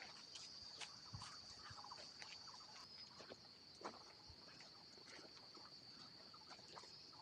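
Insects trilling in a steady high-pitched drone, with faint scattered ticks and taps over it.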